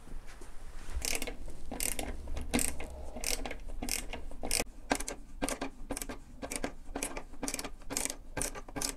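Hand ratcheting screwdriver clicking as it tightens the screws of a plastic ceiling vent diffuser, drawing its clamping flaps up against the plasterboard. Short rattles of ratchet clicks start about a second in and repeat about two to three times a second, a little faster near the end.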